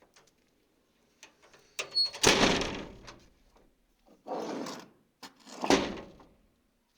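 A yard door being shut and latched: a few clicks, a loud bang about two seconds in, a shorter rattle, then a second loud bang near the end.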